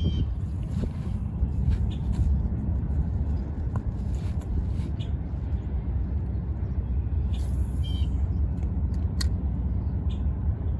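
Outdoor ambience: a steady low rumble with scattered short, high chirps and clicks.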